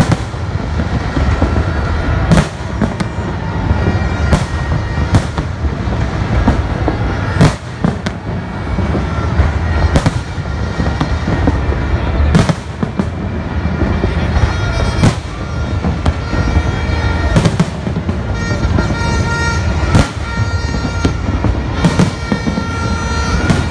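Fireworks display: aerial shells bursting in a continuous barrage, sharp bangs about once a second or more over a steady low rumble.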